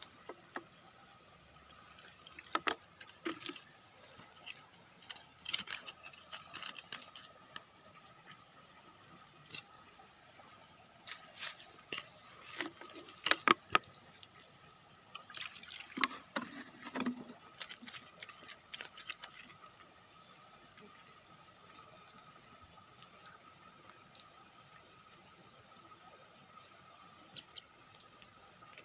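Insects buzzing with a steady high-pitched drone, with scattered short clicks and rustles. A few short bird chirps come near the end.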